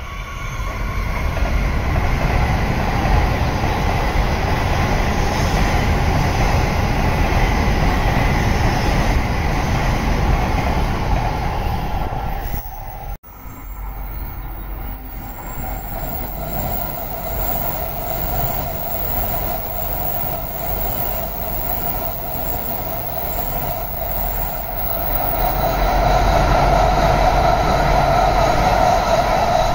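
High-speed shinkansen trains passing at speed with a steady rushing rumble and a pitched whine. First comes a Series E7, then after a sudden break about 13 seconds in, a Series E6 train, which grows louder near the end as its cars go by close.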